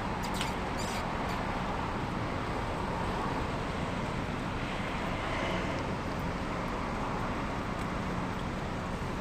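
Steady outdoor traffic noise from a street, with a few faint clicks in the first second.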